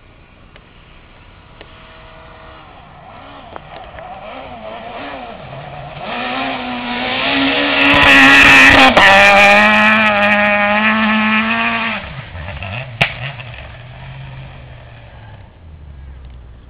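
Peugeot 207 S2000 rally car's naturally aspirated two-litre four-cylinder engine at high revs, growing louder as it approaches and passes close by at speed. The pitch steps down once at its loudest, as at a gear change. The note drops sharply a few seconds later, then comes a single sharp crack as the engine fades away.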